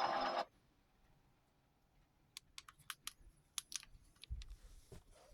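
Music cuts off about half a second in. After a short silence come a series of light, sharp clicks at an irregular pace, like typing, with a low rumble under them near the end.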